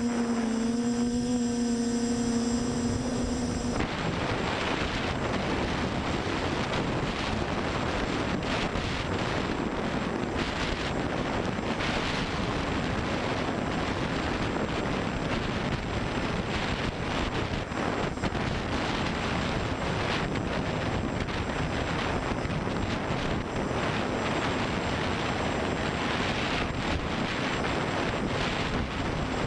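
An FPV multirotor's brushless motors and propellers give a steady, pitched hum for the first few seconds. About four seconds in this changes abruptly to a steady rush of wind noise on the microphone, with the motors buried in it, for the rest of the time.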